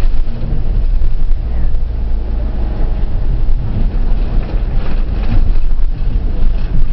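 Taxi in motion heard from inside its cabin: a loud, steady low rumble of engine and road noise.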